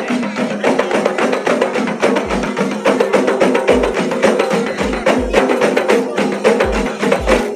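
Several hand-held frame drums (terbang/rebana) played together in a fast, dense rhythm of slaps and rim strokes, with occasional deep bass strokes.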